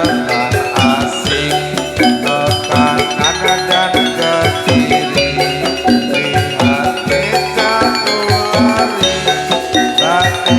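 Gamelan music accompanying a jathilan dance: struck metal mallet instruments play a fast repeating melody over steady drum beats.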